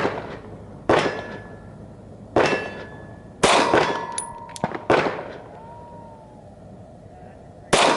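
Slow, aimed fire from a Glock 40 10mm pistol: six sharp shots at uneven intervals. Two of the shots are followed by a ringing tone lasting about a second, the steel plate at 100 yards being hit.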